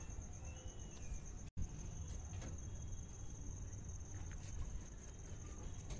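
A cricket trilling steadily with a fast, even pulse, over a low rumble, with a few faint taps as pieces of fried fish are laid into the simmering gravy in a steel wok. The sound cuts out for an instant about one and a half seconds in.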